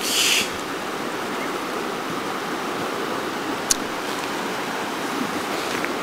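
Shallow mountain stream running over rocks, a steady rushing of water. One sharp click sounds a little past halfway through.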